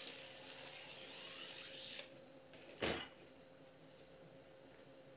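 Stepper motor of a homemade printer's paper-cutting mechanism drawing the razor-blade carriage along its toothed belt, running steadily until it stops about two seconds in. A single sharp click follows a little under a second later.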